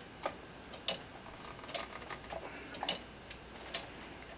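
3D-printed PLA grasshopper-escapement pendulum clock ticking: sharp plastic clicks, a louder one about once a second alternating with a fainter one.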